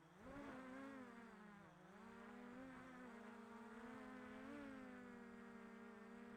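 Quadcopter drone's rotors buzzing faintly. The pitch dips and wavers during the first few seconds as the motors change speed, then settles into a steady hum.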